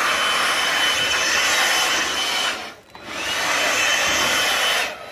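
Cordless handheld blower running with a steady high whine and a rush of air, blowing cutting dust off AAC cladding panels. It is let off about two and a half seconds in, spins back up with a rising whine about half a second later, and stops near the end.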